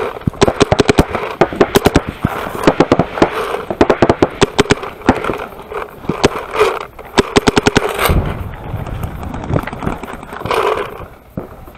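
Paintball markers firing rapid strings of shots, about ten pops a second, with short breaks between strings; the firing thins out in the last few seconds. A low thump about eight seconds in.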